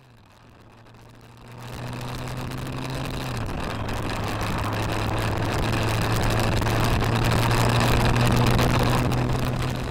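Motorcycle engine running at road speed, heard from the moving bike with heavy wind rush over the microphone. It fades in over the first two seconds, and the engine's steady hum drops in pitch once about a third of the way in.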